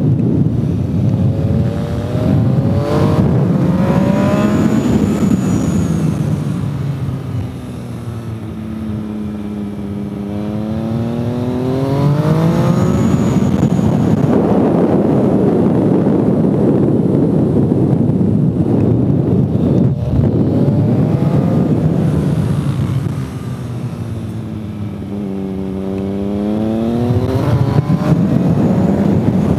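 Onboard sound of a motorcycle engine lapping a racetrack under steady wind rush. The engine's pitch sweeps down as it slows for corners, about a third of the way in and again near the end, then climbs as it accelerates out.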